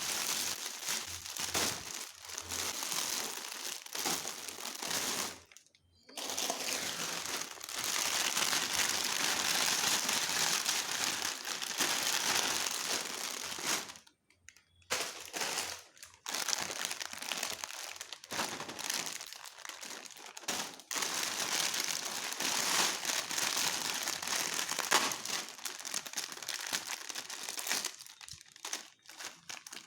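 Plastic snack packets crinkling as they are handled, almost without a break. The crinkling stops briefly about six seconds in and again about fourteen seconds in.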